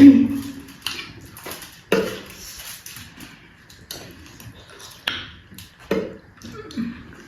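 People eating a meal: chewing and short clicks and knocks of spoons and plates, about one a second. A brief voice sound right at the start is the loudest moment.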